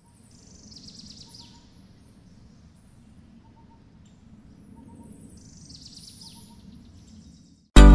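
Faint birds chirping and trilling in two short spells over a low steady background noise. Loud music with a strong beat cuts in abruptly at the very end.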